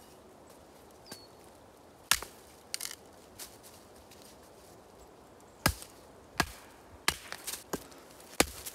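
Hatchet chopping a short log round into kindling: sharp wooden chops, one about two seconds in and then four more in quick succession near the end, with lighter knocks between.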